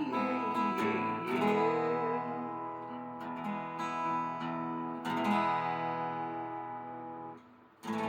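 Acoustic guitar strumming the closing chords of a song, with a brief drop in level just before a final strum near the end.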